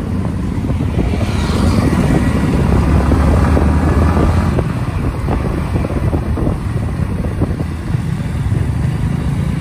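Motorcycle running on the road at speed, with wind rushing over the microphone. The sound swells about two to four seconds in and eases briefly near eight seconds.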